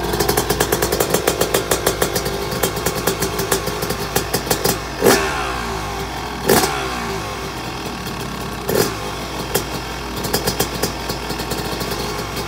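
Freestyle motocross bike's engine running with a fast, rattling run of firing pulses that thins out after about five seconds. Three louder sharp cracks come about five, six and a half and nine seconds in.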